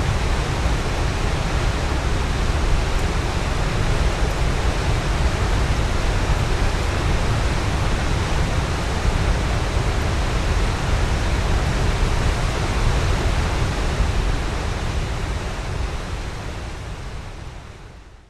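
Waterfall rushing as a steady, dense roar of falling water, strongest in the low end, fading out over the last few seconds.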